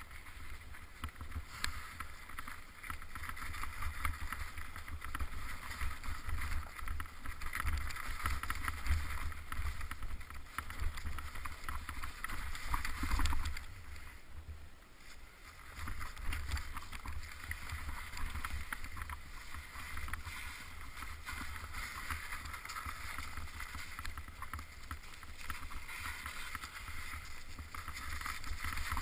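Bicycle riding along a snowy forest trail, picked up by a camera on the bike or rider: a steady low rumble of wind and vibration, a scratchy hiss from the tyres and many small clicks and rattles. It eases for a moment about halfway through, then picks up again.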